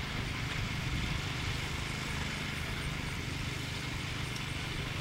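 An engine idling with a steady, even low hum.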